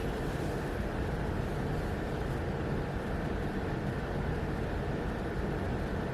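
Steady background noise: a low hum with hiss and no distinct events.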